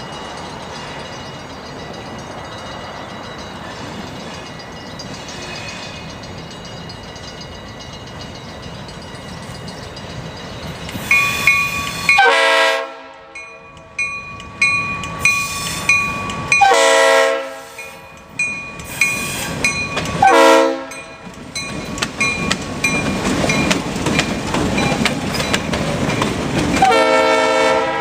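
A diesel locomotive approaching, its engine and wheels a steady rumble, then its Leslie air horn sounding about four loud chime blasts from about halfway through as it draws near, with train running noise between the blasts.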